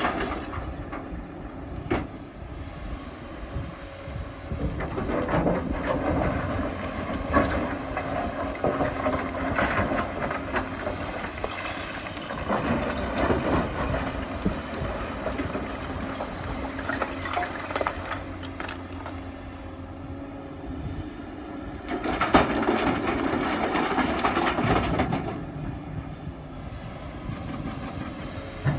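Excavator's diesel engine running under load, with the bucket scraping, grinding and knocking against rock in irregular bouts; a louder stretch of scraping comes about three quarters of the way in.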